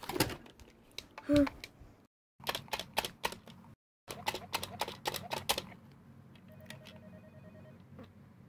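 Clicks and knocks of plastic toys being handled and a toy mobile phone's buttons being pressed, followed near the end by faint, rapid electronic beeping from the toy phone.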